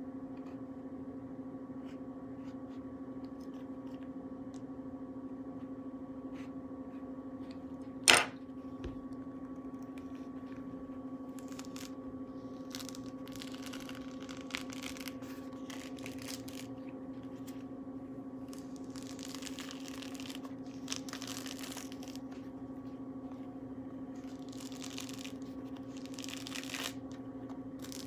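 Thick grapefruit peel being torn away by hand, heard as a run of short ripping sounds from about eleven seconds in, over a steady low hum. One sharp click about eight seconds in is the loudest sound.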